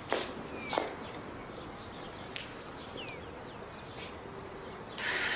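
Birds chirping in short falling whistles over a steady outdoor background, with a few sharp taps in the first second.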